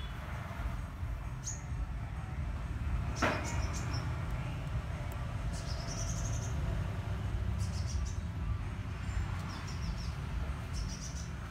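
Steady low background rumble with short high chirps, like small birds, every second or two, and one sharp click about three seconds in.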